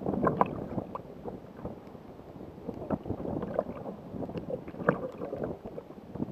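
Choppy sea water slapping and splashing against the hull of a Jackson Cuda 14 sit-on-top fishing kayak in irregular, uneven splashes, loudest near the start and just before five seconds in.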